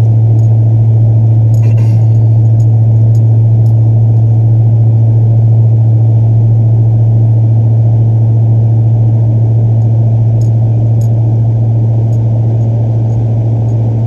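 Exhaust drone heard inside the cab of a 2013 Ford F-150 with the 5.0 L V8 and a Flowmaster 40 Series muffler, cruising at about 65 mph: a loud, steady low drone with no change in pitch.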